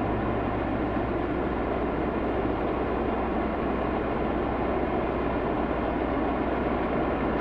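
A steady, unbroken mechanical rumble with a low hum, like a large engine running.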